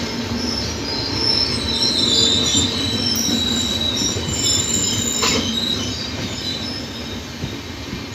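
LHB coaches of a Humsafar Express rolling past, with a low rumble and wheels squealing in high, wavering tones. A single sharp clank comes just past halfway, and the sound fades over the last few seconds.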